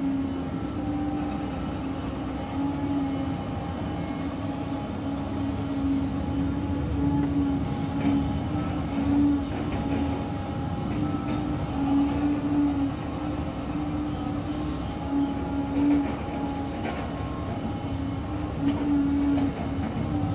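Volvo crawler excavator's diesel engine and hydraulics running under load as the machine digs and swings, a steady drone with a low hum that swells and fades every second or so.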